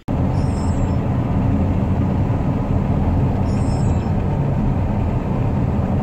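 Steady low rumble of engine and road noise inside a Chevrolet Camaro's cabin while it drives along.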